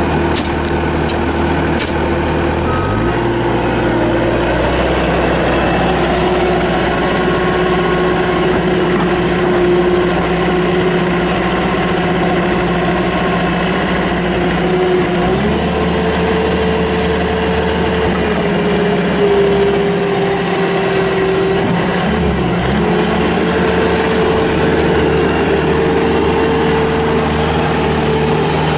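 Bobcat S250 skid steer loader's Kubota diesel engine running steadily under operation. Its pitch steps up about halfway through, sags briefly, then rises again near the end as engine speed changes.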